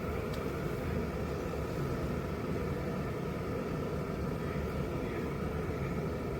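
Electric kettle heating water: a steady rumbling hiss.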